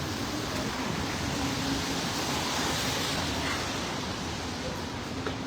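Steady noise of a rainy city street: traffic and tyres hissing on wet pavement, swelling briefly about two seconds in as a vehicle passes.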